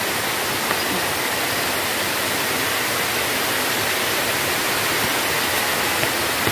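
Water pouring down a concrete dam spillway into the pool below: a steady, even rush of falling water.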